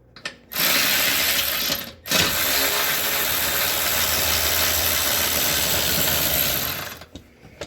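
Small ratchet run to spin out the bolts holding a part above the Toyota Tundra's oil filter, in two runs: a short one, a brief stop, then a longer one of about four and a half seconds.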